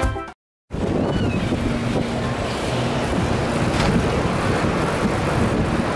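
Steady wind noise over the microphone with street noise, heard from a moving pedal bicycle taxi. Music cuts off right at the start.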